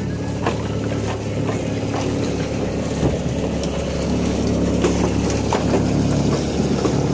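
Fishing boat's engine idling with a steady low hum, with a few light knocks on the wooden deck.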